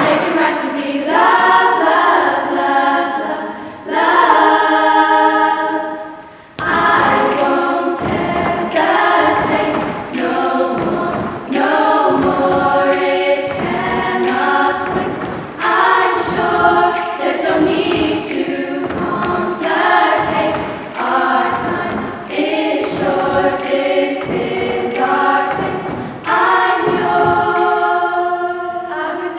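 Girls' choir singing a cappella in harmony, in short phrases, with a brief pause about six seconds in.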